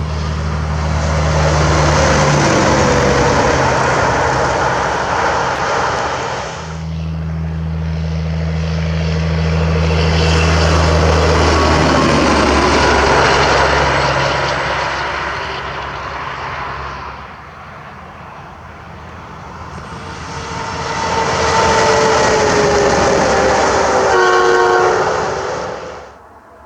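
Three diesel semi trucks passing at highway speed one after another, each a swelling roar of engine and tyres that drops in pitch as it goes by. The third truck sounds a multi-tone train horn as it passes, its chord falling in pitch.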